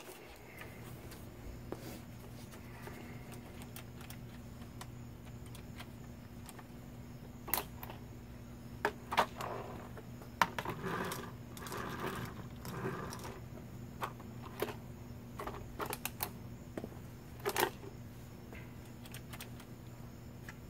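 Scattered plastic clicks, knocks and rattles as a RYOBI cordless string trimmer is handled and adjusted after assembly, with a few sharper clicks and a patch of rustling in the middle, over a faint steady low hum.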